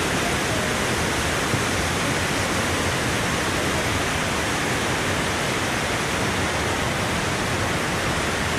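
Raven Cliff Falls roaring: a steady, even rush of falling water that does not change.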